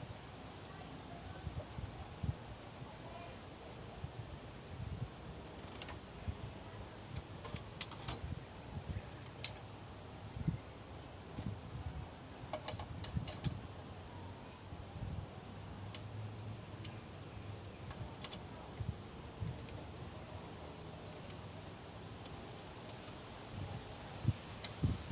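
Steady, high-pitched insect chorus throughout. Scattered light clicks and soft knocks come from teleprompter parts being handled and set down on a wooden table.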